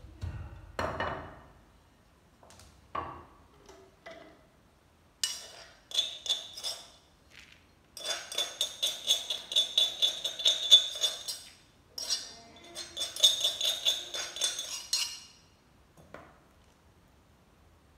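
A spoon scraping and knocking around the inside of a metal mortar bowl, in two long runs of rapid metallic clinks with a high ringing tone, as the pounded grain is emptied out. A single dull pestle thud comes about a second in.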